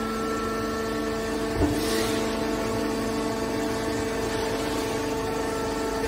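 Hydraulic power unit of a scrap metal baler, an electric motor driving the hydraulic pump, running with a steady hum. There is a brief knock about a second and a half in.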